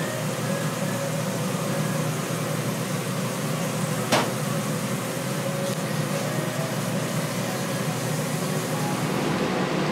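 Steady low hum and hiss of background machinery or traffic noise, with one sharp click about four seconds in.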